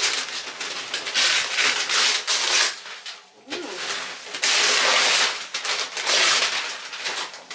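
Gift wrapping paper rustling and crinkling as it is pulled off a cardboard box, in long loud stretches with a short lull about three seconds in.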